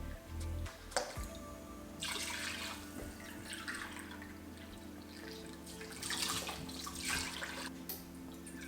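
Chicken broth pouring into the Instant Pot's inner pot in two spells, about two seconds in and again about six seconds in, over soft background music.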